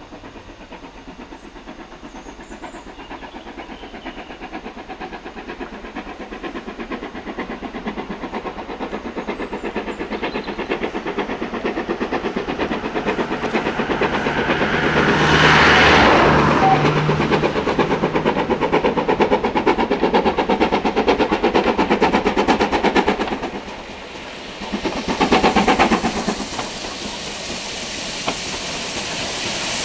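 Steam-hauled train approaching and passing close by, with rapid beating of exhaust and wheels on the rails. It grows louder for about half the time, is loudest as the locomotive goes past, then carries on as the carriages pass, with a brief dip and a fresh swell near the end.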